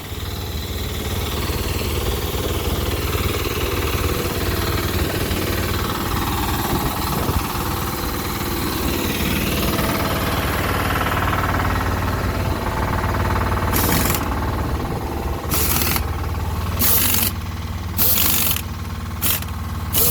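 Toyota 7FBE18 battery-electric forklift travelling: a steady low hum with a rapid mechanical rattle and a motor whine that rises and falls with speed. Several short bursts of hiss come in the last few seconds.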